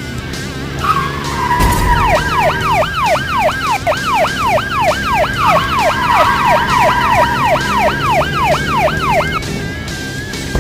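Sound-effect police siren yelping in rapid pitch sweeps, about three a second, over a long tyre screech that starts about a second in, with background music underneath.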